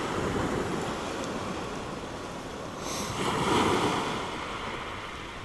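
Small sea waves breaking and washing up the beach, with one wave swelling louder about three seconds in.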